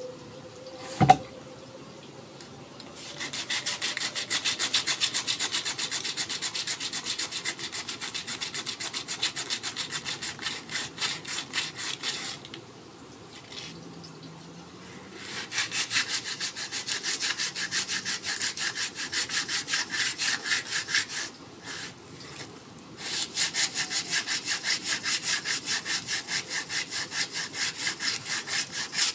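Sandpaper rubbing by hand along a forest red gum didgeridoo: quick back-and-forth rasping strokes, about four a second, in three runs with short pauses between. A single sharp knock comes about a second in.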